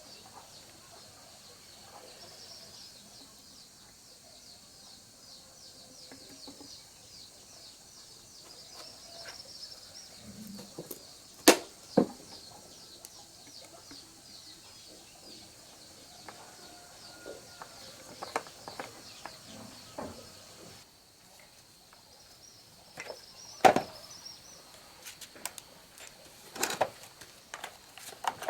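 Scattered sharp knocks and clicks, the loudest about a third of the way in and a few more in the last third, over a faint, high, rapid chirping in the background.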